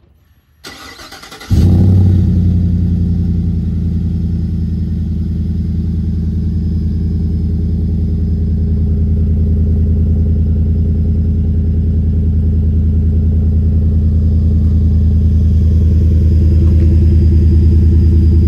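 2024 GMC Sierra 2500HD's 6.6-litre L8T gas V8 cranking and catching about a second and a half in, with a brief flare, then idling steadily through a Magnaflow muffler and 5-inch exhaust tip.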